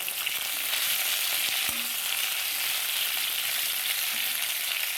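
Onion and green bell pepper sizzling steadily in hot oil in a pot, with a faint knock about two seconds in.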